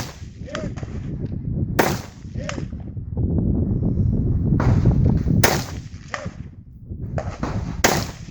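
Custom AR-15 rifle firing four single shots a few seconds apart. Each shot is followed about half a second later by a fainter crack, over a steady low rumble.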